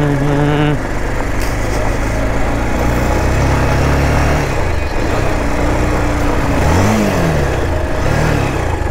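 Motorcycle engine running as the bike rides along a gravel track, under a steady rushing noise; about seven seconds in, the engine note rises and falls briefly.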